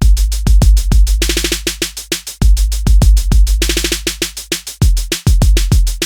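Electronic background music with a fast drum-machine beat, deep bass drops and swelling noise sweeps.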